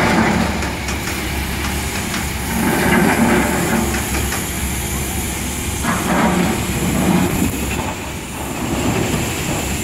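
Doosan long-reach excavator's diesel engine running under working load, a steady low rumble that swells every few seconds as it digs, with occasional sharp metal clanks.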